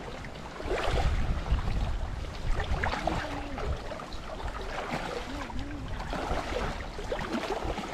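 Shallow creek water splashing and sloshing, with gusts of wind rumbling on the microphone.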